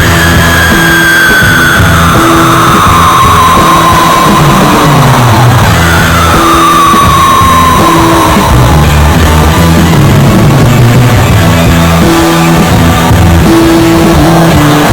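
Loud rock music with a steady, repeating bass line and sliding notes that fall in pitch twice, early and again about six seconds in.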